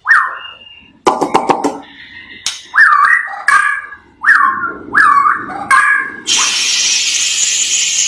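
White-rumped shama (murai batu) singing: a string of loud whistled notes that swoop up and drop back, mixed with sharp clicks and a short burst of rattling chatter. Near the end it gives way to a steady harsh hiss lasting about two seconds.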